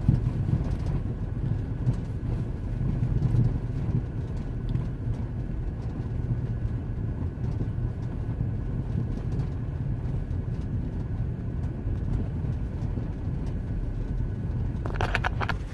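Car driving on a snowy road: a steady low rumble of engine and tyre noise with a faint steady whine above it. There is a brief clatter near the end.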